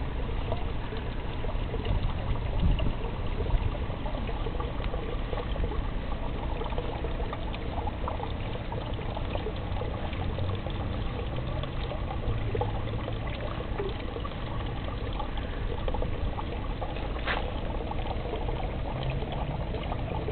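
Water pouring and trickling steadily, with a few low bumps about three seconds in.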